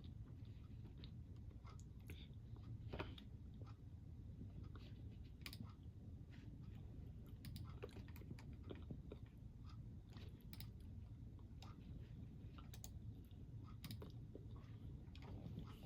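Chewing a crunchy snack: irregular small crisp crunches and clicks, heard faintly over a steady low rumble.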